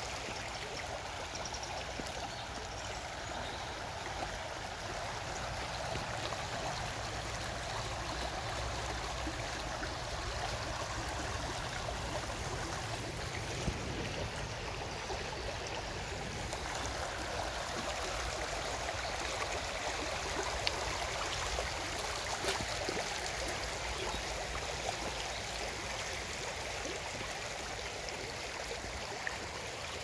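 Small brook flowing steadily, an even rush of running water, with a few faint ticks here and there.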